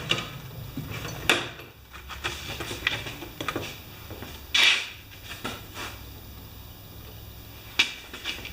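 Tools and parts being handled: scattered clicks and knocks, a louder knock about a second in and a short scraping rattle near the middle, while preparing to clamp a mower's fuel line and take off the carburetor bowl.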